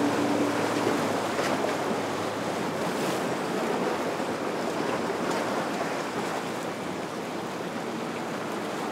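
Surf and breaking waves washing steadily in a rough inlet, with a boat engine's hum fading out about a second in.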